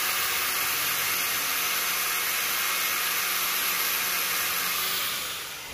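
Angle grinder with a wire wheel brush scrubbing a heat-treated steel sleeve that is spinning in a lathe chuck: a steady, dense hiss over the lathe's faint hum, fading out near the end.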